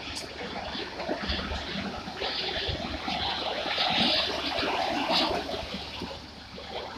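Irregular rattling and creaking noise from a track-laying crane train loaded with concrete sleepers, growing louder a few seconds in and easing off near the end.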